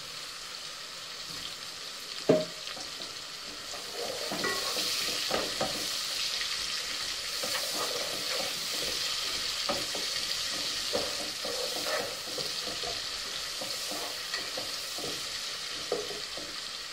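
Sliced onions sizzling in hot oil and butter with cumin seeds while a wooden spatula stirs them, scraping and tapping the pot. The sizzle grows louder about four seconds in, and there is a sharp tap a little after two seconds.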